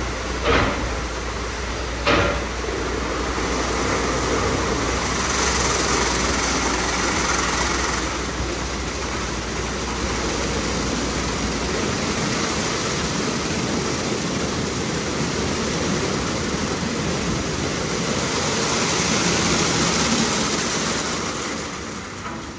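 Washtec SoftCare Pro rollover car wash in its brush-wash phase: the foam SofTecs brushes turn against the car with water spraying, a steady mechanical wash noise that swells twice. Two sharp knocks come in the first few seconds, and a low hum stops about halfway through.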